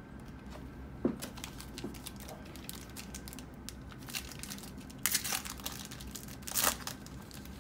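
Foil wrapper of a 2018 Certified football card pack being torn open and crinkled by hand. Small crackles run throughout, with two louder bursts of crinkling past the middle.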